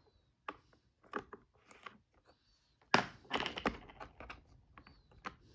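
Plastic doors and latches of a VTech Latches & Doors Busy Board (model 5174) being worked by hand: a series of sharp clicks and knocks, the loudest about three seconds in, followed by a quick run of smaller clicks and rattles.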